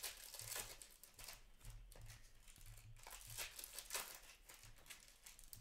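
Upper Deck hockey trading cards being flipped through by hand, a run of faint papery swishes as the cards slide against each other and off the stack.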